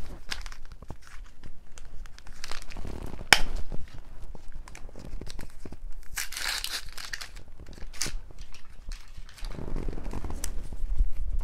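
A hungry stomach recorded up close against the belly: scattered crackles and clicks, a brief hiss about six seconds in, and a low rumble near the end.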